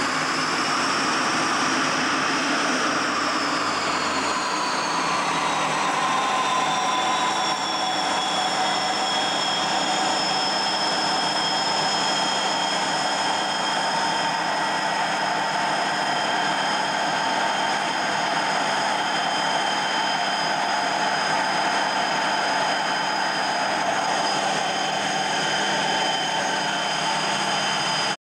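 MiG-21 jet engine running at taxi power: a steady high whine over a loud rushing noise. The whine drops slightly in pitch a few seconds in, then holds steady.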